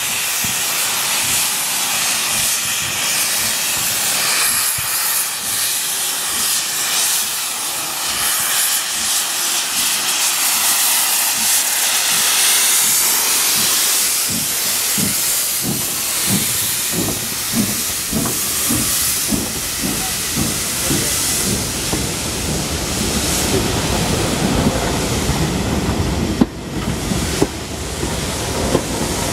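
Steam locomotive pulling past with its cylinder drain cocks open, a loud steady hiss of steam. About halfway through, a rhythmic beat at roughly two a second comes in as the engine passes close, then the coaches roll by on the rails with a couple of sharp clicks near the end.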